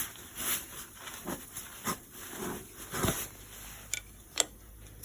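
A tire-plug kit's reaming tool (the 'drill tool') being worked into a tire puncture to open up the hole for the plug: a series of short, irregular rasping scrapes, then two sharp clicks about four seconds in.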